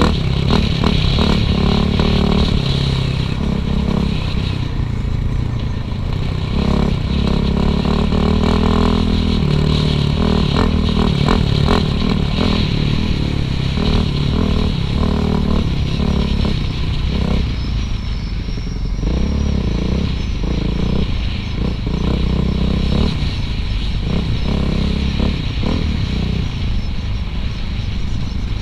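Suzuki RM-Z450 dirt bike's single-cylinder four-stroke engine running under changing throttle, its pitch rising and falling, with frequent knocks and rattles from the bike over rough ground.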